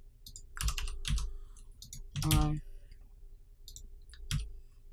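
Computer keyboard keys and mouse clicks tapped one at a time, about half a dozen separate clicks spread over a few seconds. About halfway through there is a brief hum of a voice, the loudest sound here.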